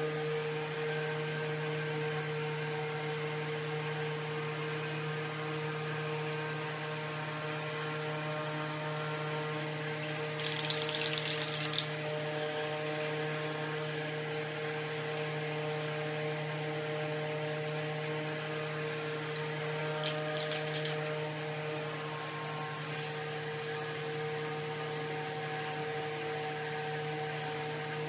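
A steady hum with several held pitches runs throughout. About ten seconds in comes a fast metallic clicking rattle lasting about a second and a half, an aerosol spray-paint can being shaken so its mixing ball rattles, and a shorter rattle follows about twenty seconds in.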